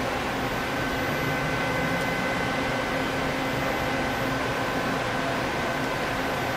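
Doosan Puma 2500LSY CNC lathe running under power: a steady mechanical hum and hiss, with a thin high whine that sets in about half a second in.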